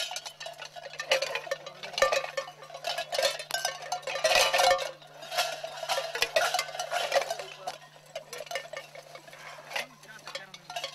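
Kukeri costume bells, large metal bells worn on the belt, clanging and jangling irregularly as the dancers move. Busiest and loudest over the first seven seconds, thinning out toward the end, over a steady low hum.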